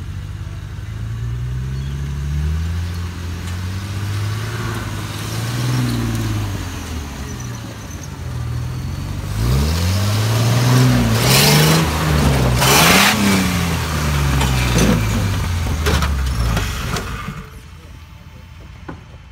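Willys flat-fender jeep four-cylinder engine revving up and down as it crawls over rocks, with loud noise over the engine for a few seconds midway. The engine sound drops away suddenly near the end.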